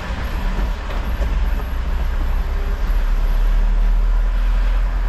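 City bus driving along with its engine running in a steady low drone, with road noise over it, heard from the driver's seat.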